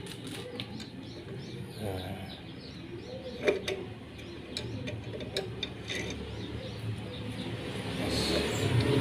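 Light clicks and clinks of a small-engine carburetor being handled and turned against its throttle linkage rods, with one sharper click a few seconds in. Birds chirp in the background, and a low rumble builds near the end.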